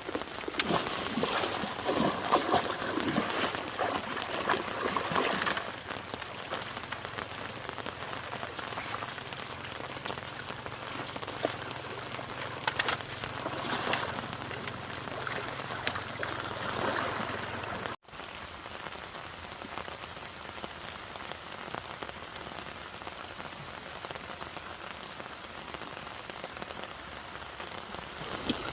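Heavy rain falling and pattering on surfaces, louder for the first five seconds or so and again in the middle. It drops out for an instant about eighteen seconds in, then carries on steadier and a little softer.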